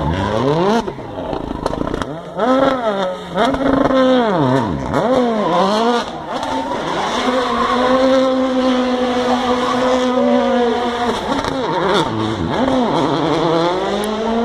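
Citroën DS3 WRC rally car's turbocharged four-cylinder engine revved hard up and down in quick swings while the car spins on the spot in a cloud of tyre smoke. The revs are held high and steady for a few seconds around the middle, then swing up and down again.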